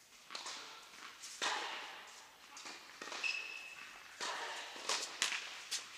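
Tennis balls being struck and bouncing on a court, heard as several irregular sharp knocks among footsteps, with a short high squeak about halfway through.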